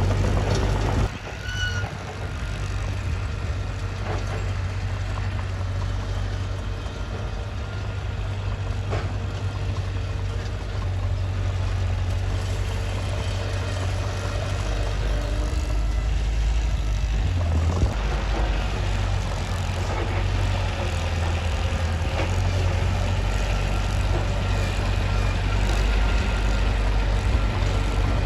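Mitsubishi bulldozer's diesel engine running steadily under work, dipping briefly about a second in and changing its note about two-thirds of the way through.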